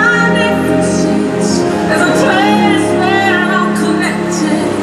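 Show soundtrack music: sustained orchestral chords under a voice holding long, wavering notes.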